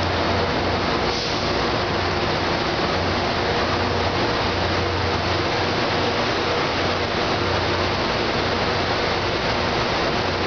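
NJ Transit ALP-45DP dual-mode locomotive running beside the platform: a steady mechanical din with a low hum that pulses gently.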